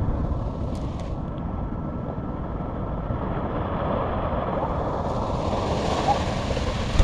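Wind rumbling on the microphone over the wash of surf, with a hiss that grows and spreads higher from about three seconds in as a wave comes in.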